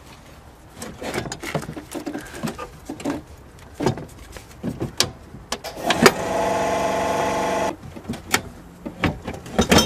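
Metal clanks and knocks from tools and parts being handled on a car's gearbox and clutch housing. About six seconds in, a small motor whines steadily for about a second and a half, then stops.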